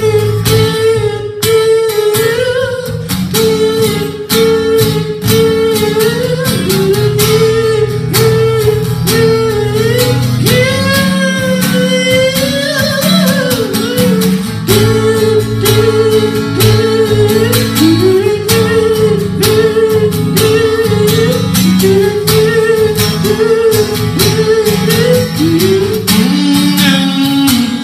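Live acoustic music: a man singing a wordless, wavering melody into a microphone over a steadily strummed acoustic guitar. Halfway through, his voice glides up and back down.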